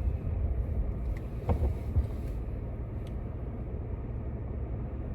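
Car driving, heard from inside the cabin: a steady low rumble of engine and road noise, with a couple of brief knocks about one and a half and two seconds in.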